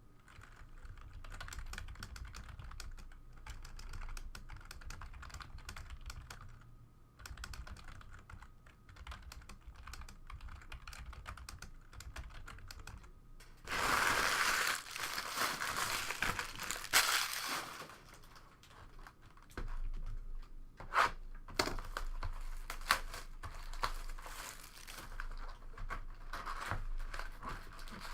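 Trading cards and their packaging being handled: a steady run of small clicks and flicks as cards are pulled and shuffled through. About halfway through there is a louder few seconds of crinkling and tearing as a wrapper is ripped open.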